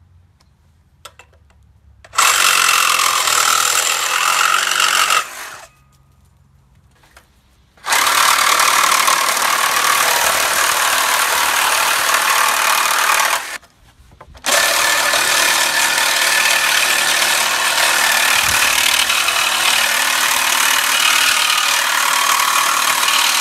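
Makita DJR360 36-volt brushless reciprocating saw cutting steel with a carbide-tooth metal-cutting blade. It runs in three loud spells: a cut of about three seconds, then one of about six seconds, and after a one-second stop a third long cut.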